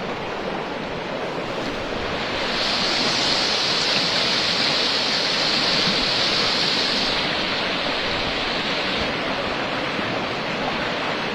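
Swift floodwater rushing past in a steady, unbroken noise of running water, with a louder hiss from about two to seven seconds in.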